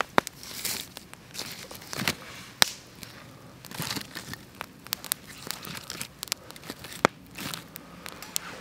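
Small kindling fire being built up in a fire pit: twigs and sticks handled and laid on with rustling and crackling, broken by several sharp snaps.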